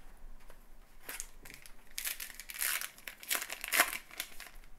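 Trading-card pack wrapper being torn open and crinkled in hand: a run of crackling rustles starting about a second in, the loudest in the middle.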